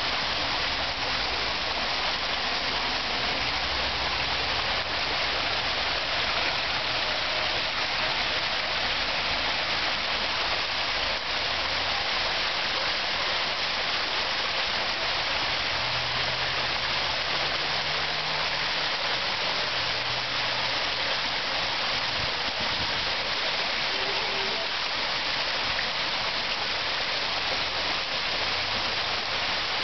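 Water falling from a man-made portable waterfall: a steady splashing rush with no breaks.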